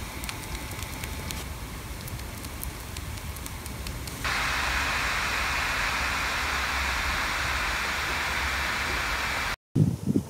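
Steady hiss with a few faint clicks, jumping abruptly to a louder, even hiss about four seconds in. The hiss cuts off suddenly near the end.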